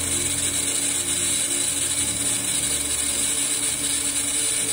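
TIG welding arc on 304 stainless steel tubing, a steady hiss with low humming tones underneath.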